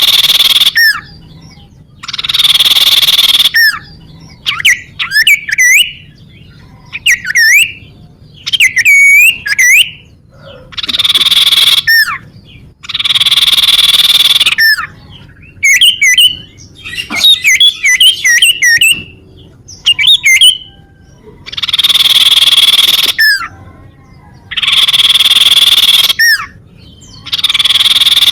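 Common iora (cipow) calling: long harsh rasping buzzes of about a second and a half, alternating with bursts of quick sharp whistled notes. This is a bird-lure recording played on a loop.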